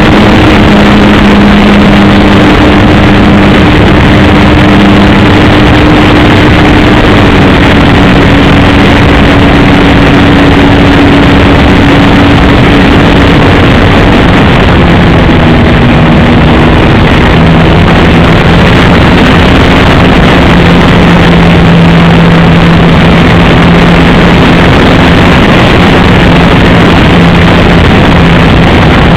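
RC Piper J-3 Cub model plane's engine running in flight, a steady buzz whose pitch drops in steps twice as the throttle or distance changes, under a loud, even hiss.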